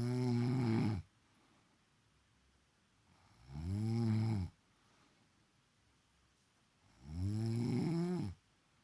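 A woman snoring: three long, pitched snores about three and a half seconds apart, each rising and then falling in pitch. The first is already under way as the clip begins.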